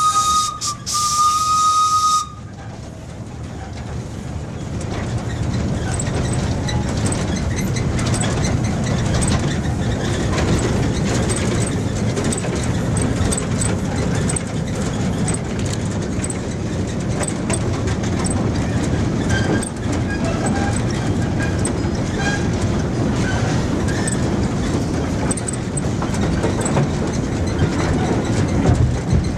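Antique steam locomotive's whistle blowing one steady note, with a brief dip, then cutting off about two seconds in. The train then runs on, a steady rumble of wheels on rails that grows louder over the next few seconds, with a regular light clicking.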